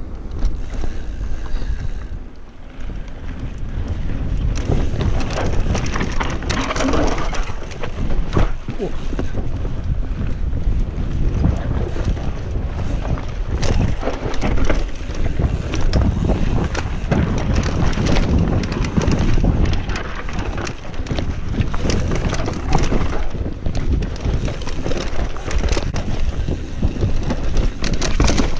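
Wind buffeting the camera microphone over the rumble and rattle of a Commencal Meta enduro mountain bike running fast down a rough forest dirt trail, with tyres crunching over roots and ground and a constant clatter of chain and frame. It dips briefly about two seconds in.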